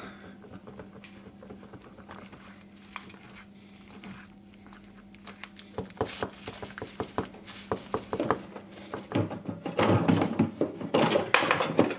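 A wooden stir stick scraping and tapping inside a small aluminium can while mixing epoxy resin and hardener, which are stiff from the cold. Near the end the scraping gives way to busier rustling and clatter as things on the bench are handled.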